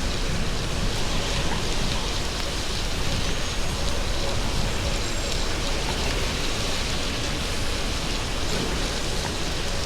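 Steady rain with a continuous, even hiss of wet noise and no distinct events.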